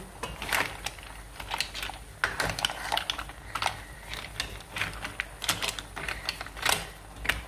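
Kitchen clatter: irregular sharp clicks and knocks of hard objects being handled, several a second.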